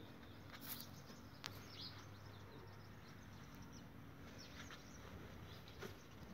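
Near silence: faint outdoor background noise with a few brief clicks and faint short chirps.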